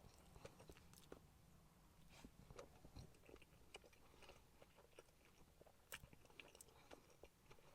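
Very faint chewing: scattered soft mouth clicks and smacks of a person eating a burger.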